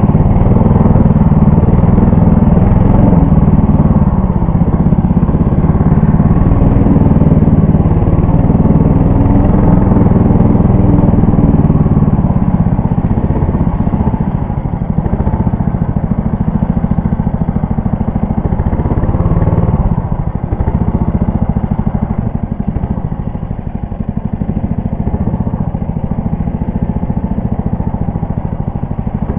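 Engine of a Leader 3 motorized snow tow running steadily under load while travelling. It eases off slightly about halfway through and dips briefly twice near the end.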